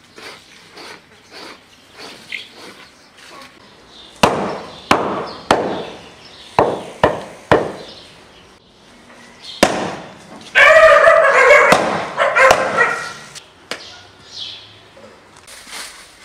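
A meat cleaver chopping through lamb ribs on a wooden chopping stump: six sharp chops in about three and a half seconds, then one more. After that a dog barks loudly for a couple of seconds.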